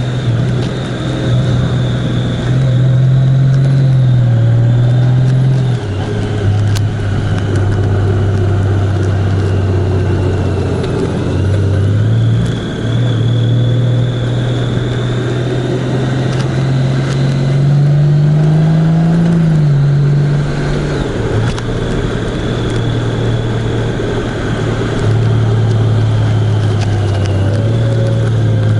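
A road vehicle's engine running at speed with road and wind noise. Its low note steps down and back up a few times.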